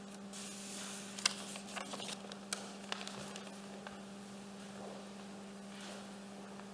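Steady low electrical hum with a few soft knocks and shuffles of a person's footsteps walking away from a lectern and down a step.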